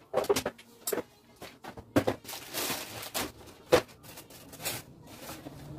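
Handling noises: a string of knocks and clicks from a plastic chair being moved and cardboard boxes being handled, with a stretch of paper rustling in the middle.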